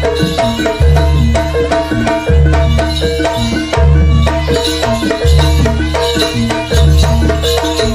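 Jaranan dance music from a live ensemble: drums and a fast repeating melody of short stepped notes, over a deep low beat that comes round about every one and a half seconds.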